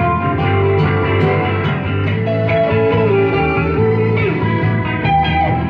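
A guitar trio playing live instrumental music: acoustic and electric guitars over a steady low bass line, with a held lead note that wavers and then drops about four seconds in.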